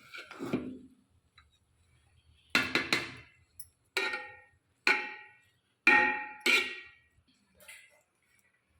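Kitchenware clinking and knocking: about six sharp strikes, each with a short ringing tone, irregularly spaced roughly a second apart from a couple of seconds in.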